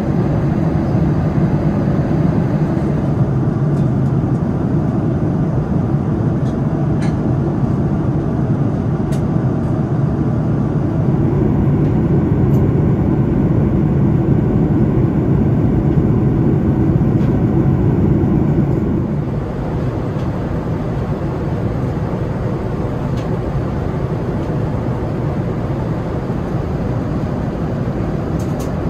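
Steady cabin noise inside a Boeing 787-9 airliner in flight: a constant low rumble with a few faint clicks, dropping slightly in level about two-thirds of the way through.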